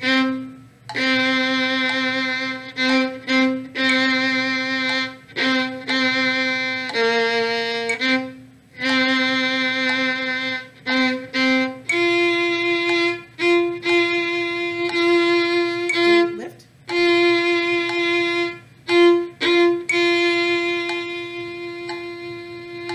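Bowed string instrument held under the chin playing the viola part of a string-orchestra arrangement at a slow metronome tempo of 60. It plays long, sustained bowed notes with brief breaks between them. About twelve seconds in, the line moves up to a higher note that is held and restruck several times.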